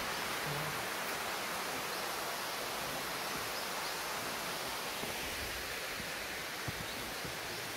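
Water rushing down a rocky waterfall cascade in a steady, even hiss, easing slightly about five seconds in. A single light thump comes near the end.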